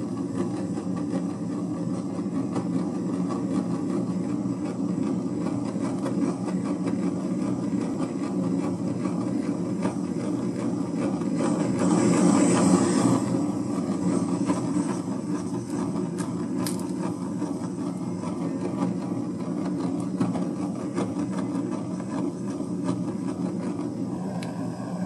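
Handheld kitchen blowtorch running on a low flame, a steady hissing roar as it sears a mullet roe. It swells louder briefly about halfway through.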